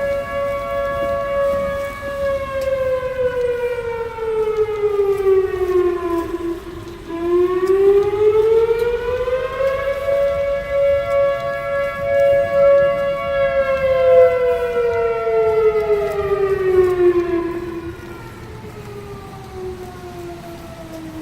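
Two fire station sirens wailing. The pitch holds high, slides down, climbs back up and holds again, then falls once more and carries on lower and quieter near the end.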